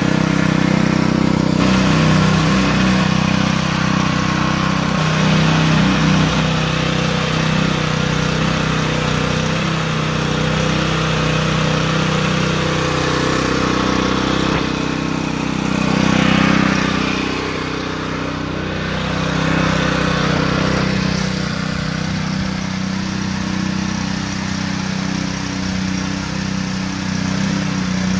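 Small petrol engine of a Titan PowrLiner 3500 airless line striper running steadily, driving its diaphragm paint pump.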